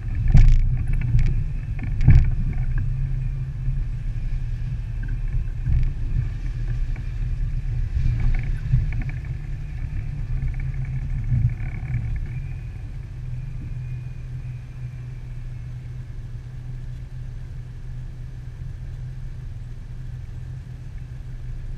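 1998 Jeep Wrangler's 4.0-litre straight-six running at crawling speed over a rough, muddy trail, heard as a low rumble. Sharp knocks from the Jeep jolting over rocks come about half a second and two seconds in, with smaller ones over the next ten seconds, then the run goes steadier and a little quieter.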